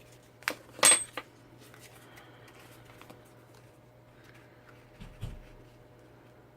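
Small hard crafting tools clicking and clinking on a work table: three sharp clicks within the first second and a half, the middle one loudest with a brief metallic ring, then a soft thump about five seconds in.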